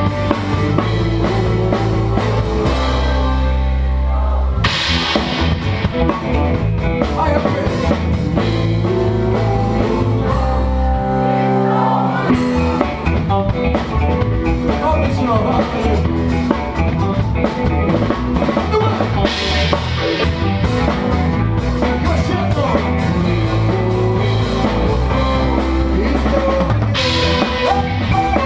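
Live band music driven by a drum kit: kick drum, snare and cymbals played in a steady groove over sustained low notes.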